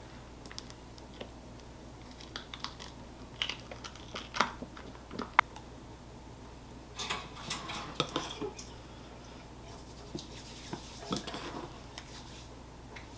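A spoon clinking and scraping against a glass mixing bowl while scooping thick, sticky marshmallow cream, in scattered light clicks and knocks, the sharpest about five seconds in.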